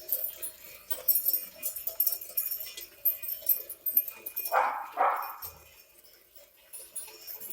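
Bells jingling and clinking on a moving cattle herd, with two short harsh animal calls just past the middle.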